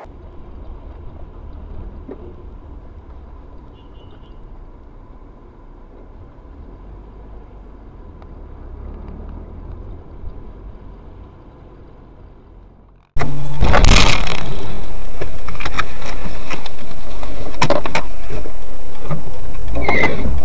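Low, steady road and engine rumble inside a moving car, recorded by a dashcam. About two-thirds of the way through, it gives way abruptly to a very loud, distorted noise with several sharp knocks that overloads the recording.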